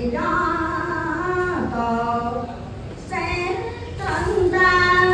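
A woman chanting in a drawn-out, sung voice, holding long steady notes of a second or more each, with a few shifts in pitch.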